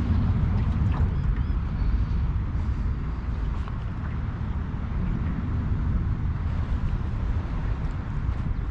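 Steady low rumble of wind buffeting the camera microphone on a small open aluminium boat, with no clear engine note.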